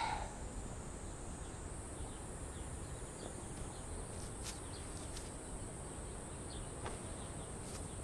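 Insects making a steady high-pitched drone, with a few faint ticks.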